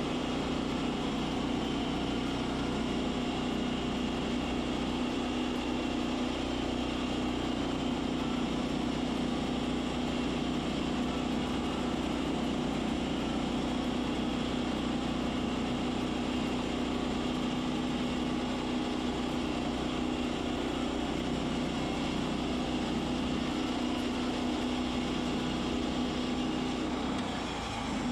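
Woodland Mills HM122 portable bandsaw mill sawing through a log, its gas engine running steadily under load as the band blade cuts the wood. The sound drops off abruptly near the end.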